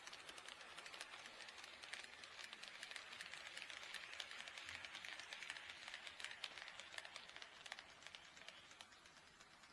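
HO scale model train running past on the track: a rapid, irregular clicking of wheels over rail joints with a light rolling hiss. It grows louder as the train comes close and fades away near the end.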